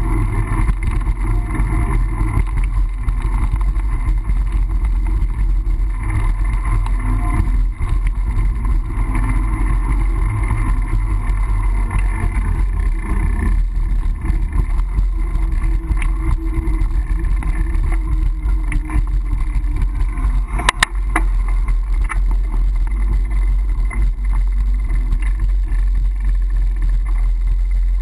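Steady wind and riding rumble on a GoPro's microphone during a mountain-bike ride, with street noise behind it. A single sharp knock comes about three quarters of the way in.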